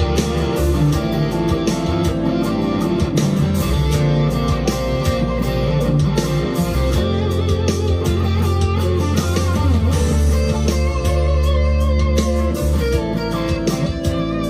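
Monoprice Indio Cali Classic Strat-copy electric guitar played through an amplifier: picked single notes and chords over held low notes, with wavering, bent notes about two-thirds of the way through.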